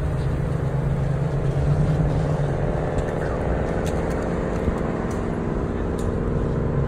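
Steady road noise heard inside a moving car's cabin: engine and tyre rumble at freeway speed, with no sudden events.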